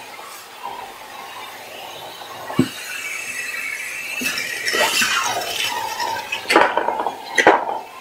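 Shop vac running with a steady whine while batteries clink and clatter against hard surfaces as they are sucked up. There are several sharp metallic knocks, with the two loudest near the end.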